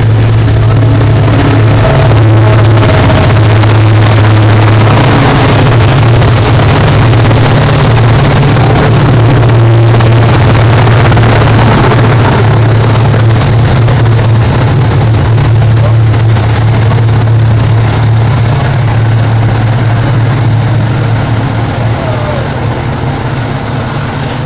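Passenger train running: a loud, steady rumble with a low drone throughout, easing slightly near the end.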